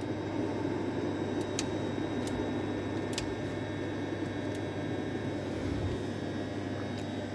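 Steady low electrical hum and machinery noise of an industrial switchgear room, with a few faint clicks.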